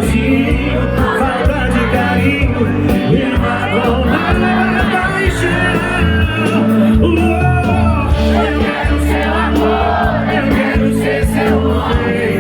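Loud live sertanejo music: a band playing with several voices singing, and crowd shouts mixed in.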